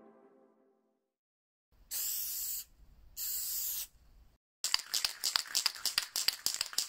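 Aerosol spray-paint can: two short sprays of under a second each, then the can shaken, its mixing ball rattling rapidly for a couple of seconds.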